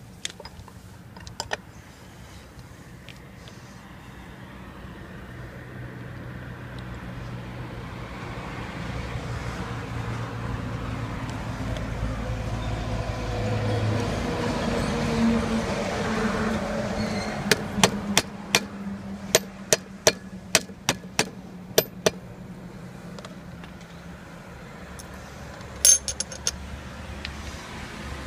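A motor vehicle's engine grows louder over about ten seconds and slowly fades again. Over it come sharp metallic clicks and clinks of small metal parts being handled on a metal case: a quick series in the second half and one loud click near the end.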